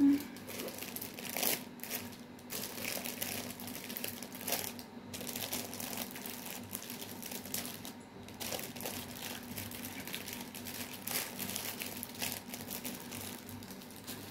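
Small plastic bags crinkling and rustling in irregular crackles as they are handled and packed.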